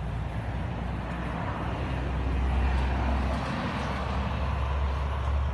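Low rumbling background noise that swells louder about two seconds in and then eases a little.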